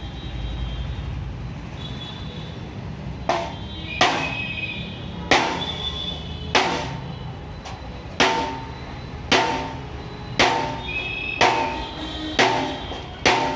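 Hammer blows on a wooden block held against a steel Mahindra Bolero front bumper, about one a second starting some three seconds in, each with a short metallic ring: panel-beating the accident-dented bumper back into shape.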